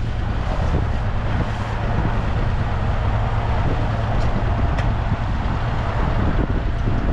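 Wind rumbling steadily on the microphone aboard a small open fishing boat, with a couple of faint light knocks from the boat.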